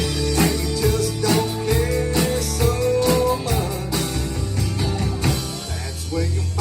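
Live band playing a song: guitar notes held over a bass line and a steady drum beat.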